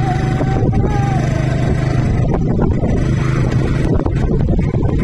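A motor vehicle's engine running at a steady speed, a continuous even hum. A thin, slightly wavering whistle-like tone sounds over it for about the first second and a half.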